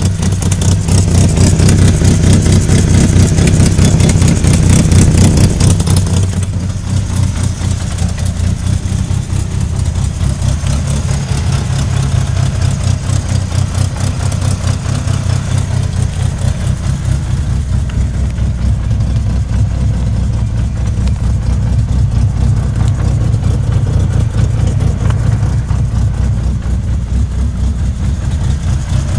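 1998 Mitsubishi Eclipse RS's four-cylinder engine running at raised revs for about the first six seconds, then dropping back to a steady idle. A rapid knocking runs through it, which the owner suspects comes from the transmission.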